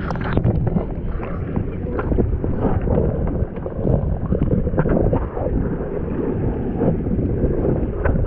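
Jet ski running on the water, a steady low rumble with wind buffeting the microphone and scattered small knocks.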